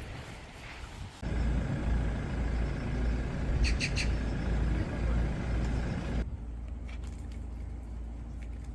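Steady low rumble of a road vehicle running, with three short high squeaks a little before the middle. About six seconds in, it drops abruptly to a quieter steady hum.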